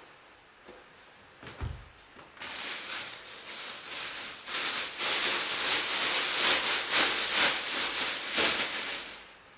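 Loud rustling and crinkling of things being handled and packed, with a low thump about one and a half seconds in.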